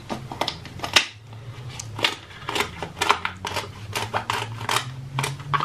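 Scissors snipping through the shell of a king crab leg: an irregular run of sharp crunching clicks and snaps, several a second.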